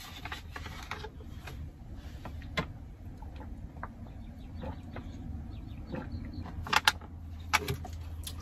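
Plastic water bottle being opened and handled while someone drinks from it: scattered short clicks and crackles of the plastic, sharpest in a quick cluster about seven seconds in, over a low steady hum.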